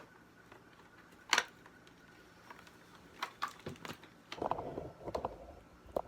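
Hard plastic parts of a Dyson vacuum cleaner being handled: a sharp click about a second in, a run of light clicks around three to four seconds, then a short burst of rattling and knocking.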